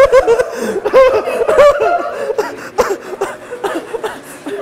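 Hearty laughter in quick repeated ha-ha pulses, strongest in the first couple of seconds, then tapering off to scattered chuckles.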